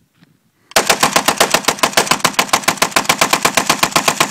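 Arsenal SLR-101S semi-automatic AK-pattern rifle in 7.62x39mm being bump-fired: a fast, even string of shots at about eight a second, starting under a second in and running until just before the end, when the magazine runs empty.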